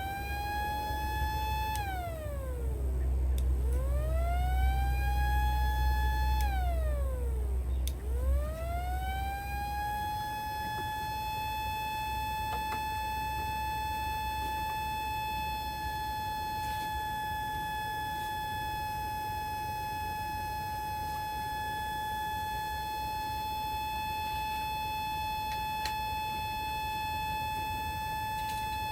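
Small model tornado siren sounding. Its tone rises, holds briefly and drops sharply twice, then rises a third time about eight seconds in and holds one steady high tone. A low rumble sits beneath the first wails.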